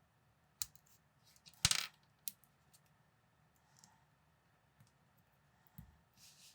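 Plastic building-brick pieces clicking and clattering as they are handled and fitted together: a sharp click before one second in, a louder short clatter just before two seconds, a few lighter clicks, and a soft knock with a brief rustle near the end.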